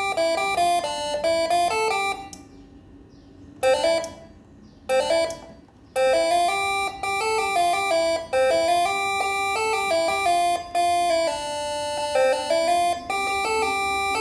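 Six-trumpet 24-volt telolet horn module playing a tune of quick horn notes that step up and down. Two short breaks come in the first six seconds, after which the melody runs on.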